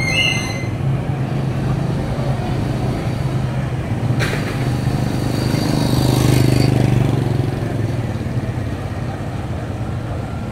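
Street ambience dominated by a motor vehicle's engine hum that swells as it passes, loudest about 6 to 7 seconds in, then fades. A sharp click about 4 seconds in.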